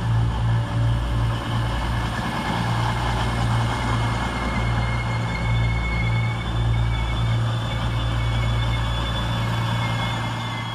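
Avanti West Coast Class 221 Super Voyager diesel-electric units pulling out of the platform, their underfloor diesel engines running with a steady low drone and a thin high whine. The sound starts to fade near the end as the rear car passes.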